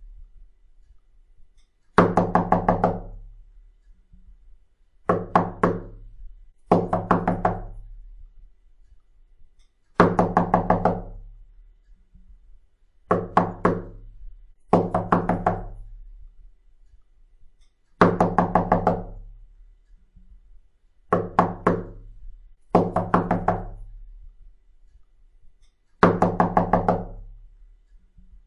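Knocking on a door, looped as a ringtone. Each burst is four or five quick knocks. The bursts repeat every eight seconds in a fixed pattern: one burst, then about three seconds later two bursts in a row.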